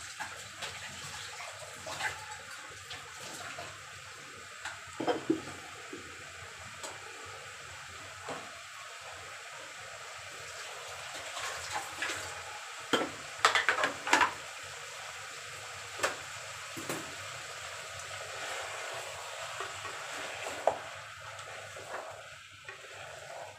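Tap water running into a steel kitchen sink while utensils are washed, with scattered clinks and clatters of metal dishes, several in a row about halfway through.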